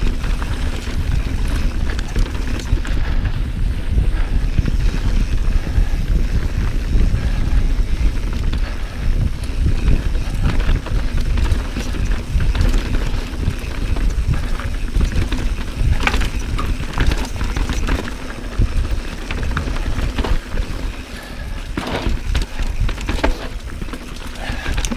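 Mountain bike descending a rocky dirt trail: wind buffeting the camera microphone with a steady rumble, tyres rolling over dirt and rock, and sharp rattling knocks from the bike over rough ground about 16 seconds in and again around 22 seconds in.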